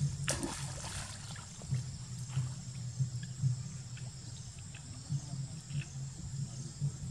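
Macaques splashing and sloshing about in a shallow muddy puddle, with one sharper splash about a third of a second in and small scattered splashes after. A steady low hum runs underneath.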